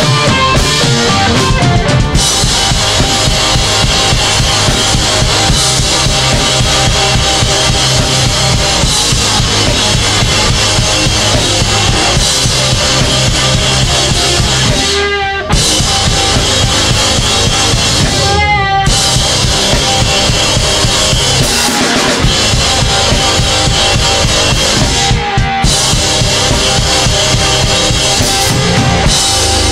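Rock band playing an instrumental passage, the drum kit loudest with bass drum and snare, over guitar and bass. The sound dips briefly about fifteen seconds in.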